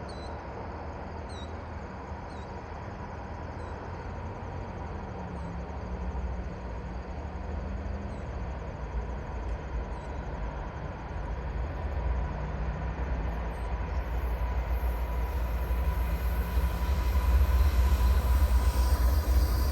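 CN freight train rolling past, a deep rumble of wheels on rail that grows steadily louder.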